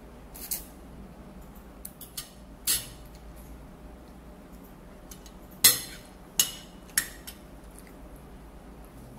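A metal fork and spoon clinking and scraping against a ceramic plate while the last of the spaghetti sauce is scooped up: a few light clinks, then three sharper clinks close together a little past halfway, the first the loudest.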